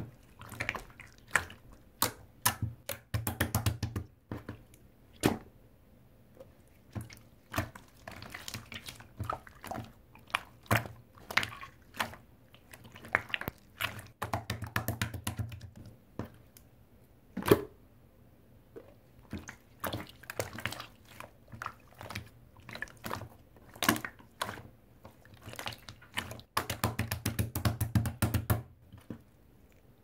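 Grey liquid slime being squished, stretched and pressed by hand, giving wet, sticky clicks and pops. Three times, about 3 s in, midway and near the end, the clicks come in fast crackling runs.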